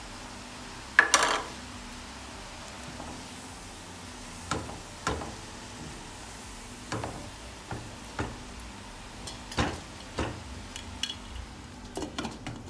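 Spatula stirring chopped spinach in a non-stick pot, with a dozen or so sharp knocks of utensils against the pot, the loudest about a second in. Near the end a glass lid clatters onto the pot. A steady faint hiss runs underneath.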